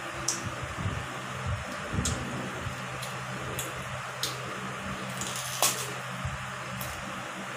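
Close-up eating sounds of a mango being bitten and chewed: a handful of short, crisp clicks and crunches, the loudest about five and a half seconds in. Underneath is the steady hum of an electric fan.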